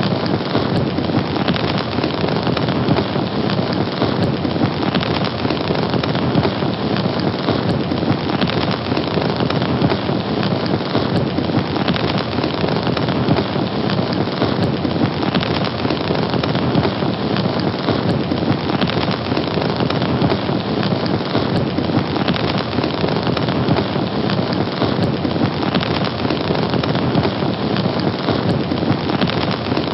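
Fire burning: a steady, dense hiss of many small crackles.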